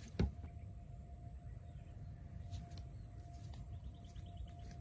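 Outdoor ambience with a steady low rumble, a single sharp knock just after the start, and a short quick trill of bird chirps about four seconds in.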